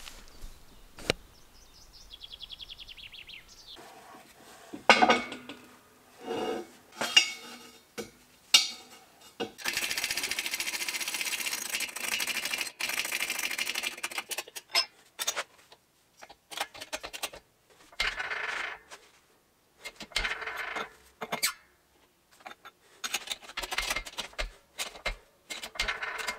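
Steel clanks and clinks of an ARGO wheel axle shaft and press parts being handled and set in a homemade hydraulic press for straightening a bent axle. About ten seconds in there is a steady hiss lasting about four seconds, and separate metal knocks follow.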